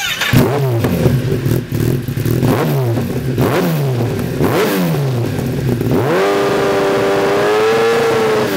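2013 Kawasaki ZX1000's inline-four engine revved through a Lextek GP1 silencer. There are about five quick throttle blips, each falling back toward idle, then a held rev of about two seconds that drops away near the end.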